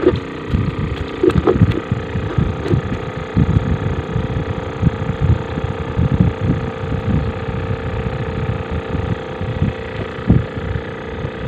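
A motor hums steadily at one pitch while wind buffets the microphone in irregular gusts.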